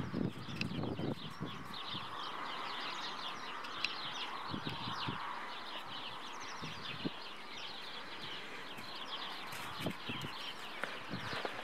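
Many small birds chirping and twittering at once, a dense chorus of short falling calls. A few soft low thumps are heard now and then, near the start and again later.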